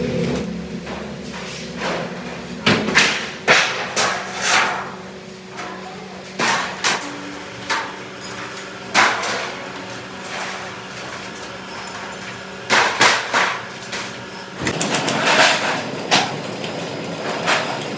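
Irregular knocks and clatter of parts being handled and struck in a workshop, with a busier run of rapid knocks near the end, over a steady low machine hum.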